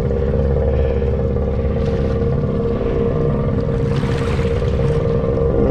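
Honda Rubicon ATV engine running steadily at low speed while the quad wades through deep water, its air intake raised on a snorkel. Water sloshes and splashes around the machine, most strongly about four seconds in.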